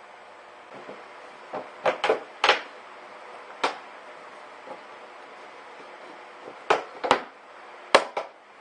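A series of about eight sharp clicks and knocks at irregular intervals over a faint steady hiss: hard parts being handled and fitted together.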